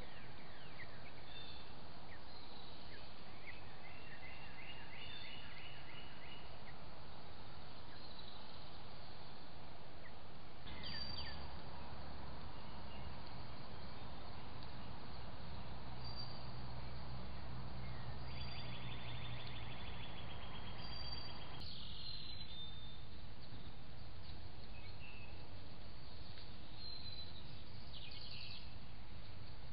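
Steady hiss of outdoor background noise with songbirds calling, including two rapid trills of evenly repeated notes, one early and one about two-thirds through; the background changes abruptly twice where clips are cut together.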